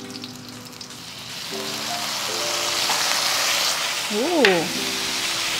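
Cubed chicken luncheon meat frying in a hot wok, the sizzle swelling about a second in as light soy sauce is poured onto the pan.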